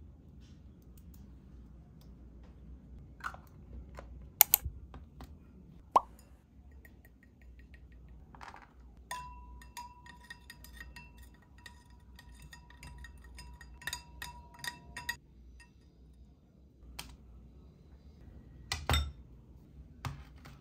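Tabletop handling sounds: a few sharp clicks and a plop as small lids and containers are handled, then a spoon stirring in a drinking glass, clinking against it with a ringing tone for about six seconds. Near the end, a ceramic bowl is set down on a plastic tray with a knock.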